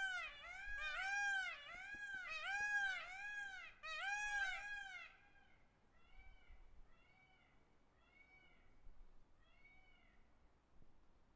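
A peacock calling a rapid series of short cries, each rising then falling in pitch, about two a second. The cries are loud for the first five seconds, then carry on much fainter and a little slower until near the end.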